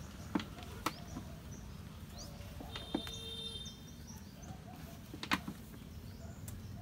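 Quiet outdoor ambience: a low steady rumble with four short sharp knocks spread through it, and faint short bird chirps around the middle.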